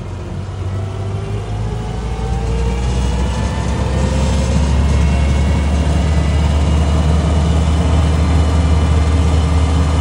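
Land Rover Series IIA engine and drivetrain pulling in fourth gear with four-wheel drive high range engaged, heard inside the cab while climbing a hill. The low drone grows louder over the first few seconds, with a whine rising in pitch, then holds steady.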